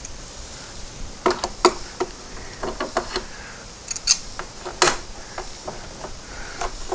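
Plastic push rivets being pulled out of a plastic engine-bay cover panel with tongue-and-groove pliers: a scattered series of sharp clicks and snaps, with the plier jaws and the panel clacking.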